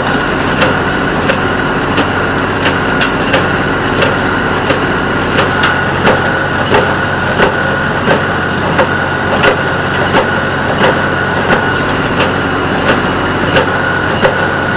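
Tractor engine running steadily under load while a square hay baler works, its plunger knocking sharply and evenly about every 0.7 seconds as it packs hay.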